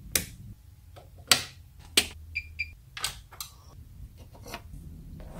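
Sharp clicks and knocks, the first of them a wall light switch being flipped. About two and a half seconds in come two short high electronic beeps. Toward the end are lighter clicks as plastic safety glasses are handled.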